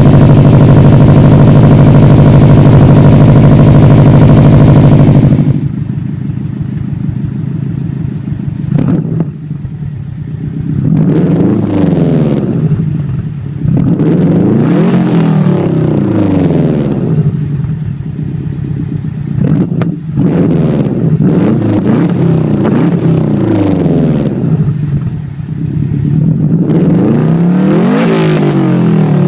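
Turbocharged flat-four of a 2004 Subaru WRX STI through a Borla Hush turbo-back exhaust. It runs loud and steady for the first five seconds or so, then drops to idle and is revved repeatedly, each rev rising and falling back to idle.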